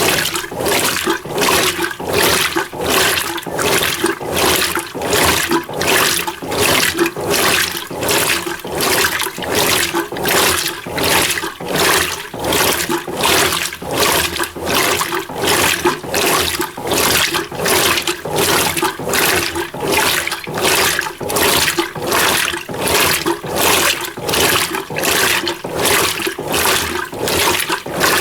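Mueller Energy 8 kg top-load washing machine agitating a small load in low water: regular sloshing swishes, about one and a half a second, over a steady motor hum.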